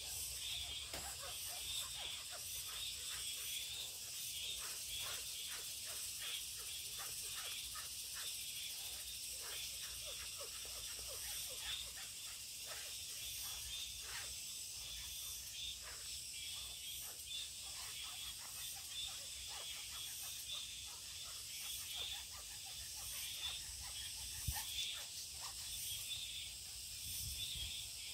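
Wooden spoon scraping dried potato starch through a fine metal mesh sieve: quick, repeated rubbing strokes against the mesh, several a second. A steady high-pitched drone sits in the background.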